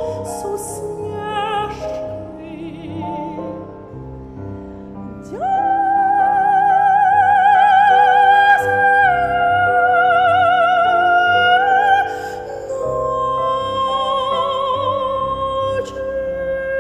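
Classical art song: a soprano sings long, held high notes with wide vibrato over piano accompaniment. It is softer for the first few seconds, then about five seconds in a loud high note enters and is held, followed by further long notes.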